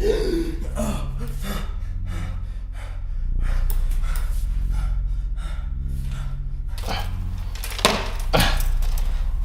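Intro music: a low steady drone under a series of short noisy hits, with two louder hits near the end.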